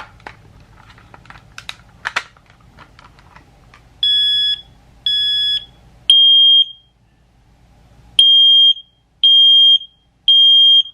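FADC smoke alarm set off and sounding its loud, high-pitched alarm beep in the three-beep temporal pattern: three beeps about a second apart, a short pause, then three more. A few faint handling clicks come before the first beep.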